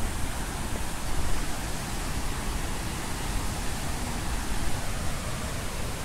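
Steady rush of a waterfall's falling water, an even, unbroken noise.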